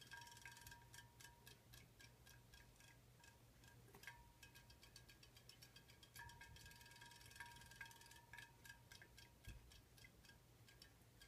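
Faint, rapid mechanical ticking from a small battery-powered robotic fish toy, with a thin whine that comes in for a couple of seconds at the start and again about six seconds in.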